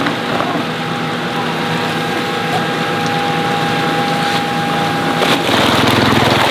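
A small engine running steadily under a hiss of noise. About five seconds in, its steady tone drops away and a louder rush of noise takes over.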